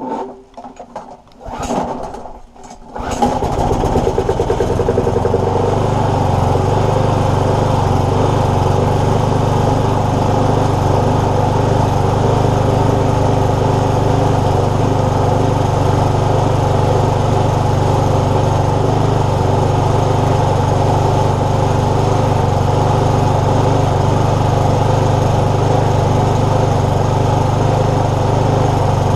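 Briggs & Stratton lawnmower engine being pull-started: a few short pulls, then it catches about three seconds in and runs steadily at a constant speed. It is running again after being hydrolocked with engine oil, which has been drained from the cylinder and exhaust.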